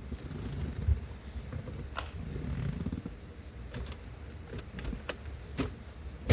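Hands working loose interior trim around the shifter: low rustling and handling noise with a few sharp clicks, and a louder knock near the end.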